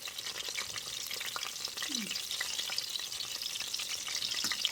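Breaded chicken cutlets frying in hot oil in a pan: a steady sizzle with frequent small crackles and pops of spattering oil.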